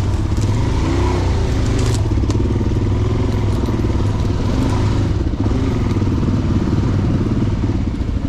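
Dual-sport motorcycle engine running at low speed, a steady low drone whose pitch rises and falls a little a few times.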